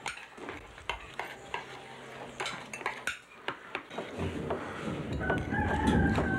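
Scattered light clinks and clicks of dishes and utensils at a table, and from about five seconds in a rooster crowing, one long held call.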